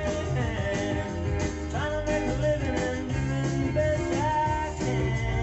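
A song with singing and guitar, played from a vinyl record on a turntable and heard through a pair of hi-fi loudspeakers in the room.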